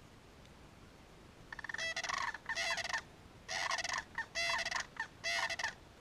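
A crane calling: a rattling call that opens with a quick stuttering run about a second and a half in, then goes on in about five loud phrases.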